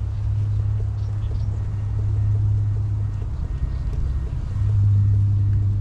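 Wind buffeting the microphone: a steady low rumble that swells near the end.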